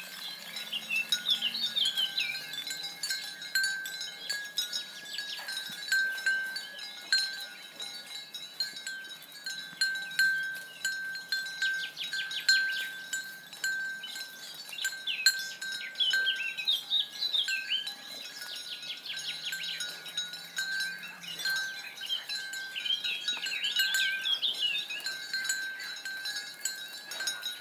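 Botalo, a livestock bell on a stallion's neck, clanking irregularly and ringing on as the horse moves.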